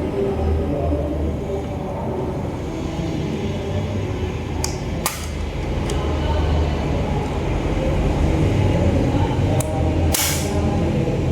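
Unboxing handling sounds of a diecast model and its packaging: a few sharp clicks about halfway through and a short crinkly rustle near the end, over a steady low rumble.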